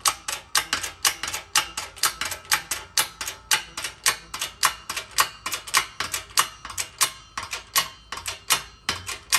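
Shop press driving a bushing into a Ford 4R100 sun gear: a steady run of sharp metallic clicks, about three a second.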